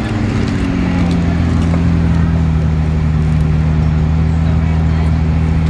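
McLaren Senna GTR's 4.0-litre twin-turbocharged V8 at low revs. Its pitch drops in the first half-second, then it settles into a steady idle.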